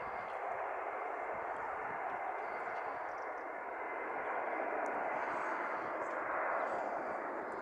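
Aircraft engines running with a steady, even roar that swells slightly about six seconds in.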